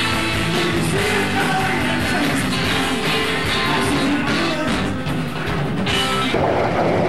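Rock-and-roll music with singing, guitar and drums. About six seconds in it cuts off suddenly and a steady rushing noise, like wind on the microphone, takes over.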